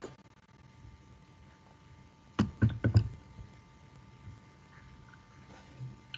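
A quick cluster of about four sharp clicks or knocks around two and a half seconds in, over a faint steady hiss and hum.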